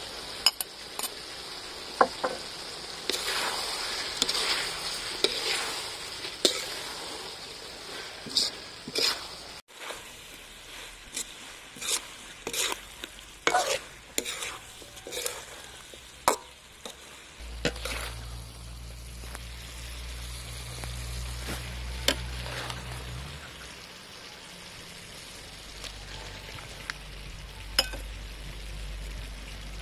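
Pig's tongue and pineapple stir-frying in a metal wok: a steady sizzle of food in hot oil, broken by many sharp scrapes and clicks of a spatula against the pan.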